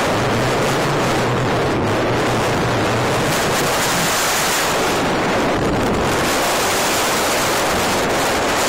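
Strong wind blowing across a phone's microphone: a steady, loud rushing noise with no let-up.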